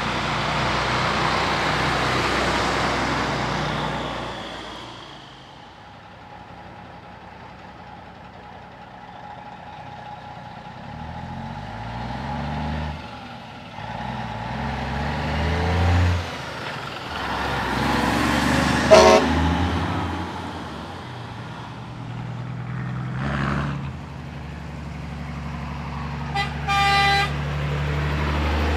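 Heavy diesel trucks driving past one after another, engines pulling through the gears with rising pitch. A few short horn toots in the second half, the clearest a brief horn blast near the end.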